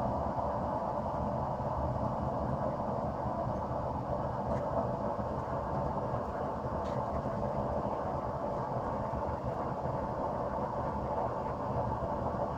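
Propane gas forge burner running with a steady roar as the blade stock heats, with a couple of faint ticks.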